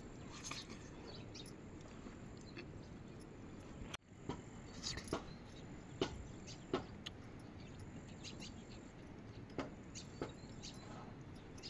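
Steady hiss of rain falling, with a scattered handful of sharp taps and clicks. It drops out briefly about four seconds in.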